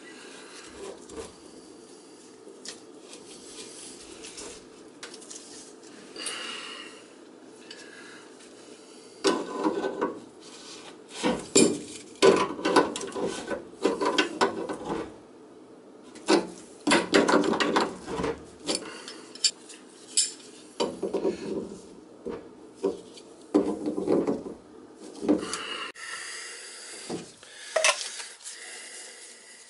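PVC drain pipe, fittings and slip-joint pliers being worked under a sink: irregular clicks, knocks and clatter of plastic parts and the tool, with scraping and rubbing. It is quieter for the first several seconds and then busy with clatter from about nine seconds in.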